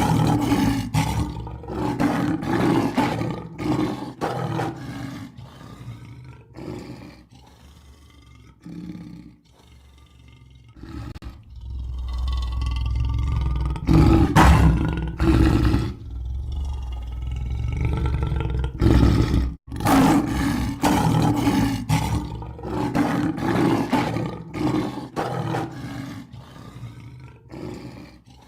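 Lion roaring: a run of short grunting roars, about one or two a second, that grow fainter, then a long loud roar lasting several seconds, then another run of grunts fading away.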